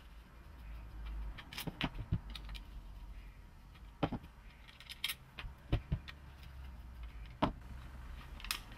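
Torx screws being backed out of a TRW ABS module's electronics housing and set down on the bench: small metallic clicks and clinks at irregular intervals, about eight of them.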